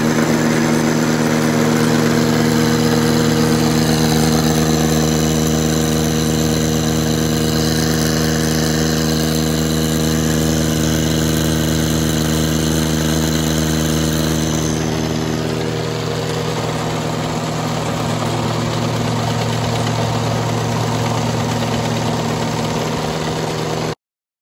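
The Kubota G6200's three-cylinder diesel engine, fitted with an aftermarket turbocharger, running steadily. Its sound changes slightly about fifteen seconds in and cuts off suddenly near the end.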